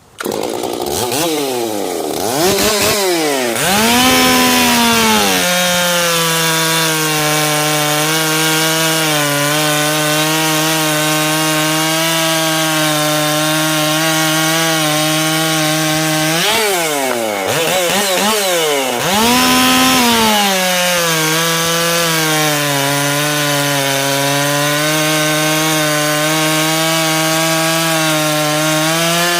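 Ported Stihl MS 461 two-stroke chainsaw with a 25-inch bar cutting through a large pine log. It comes in abruptly and revs up, then the engine pitch drops and holds steady under load in the cut. About 17 seconds in it revs up briefly, then settles back under load.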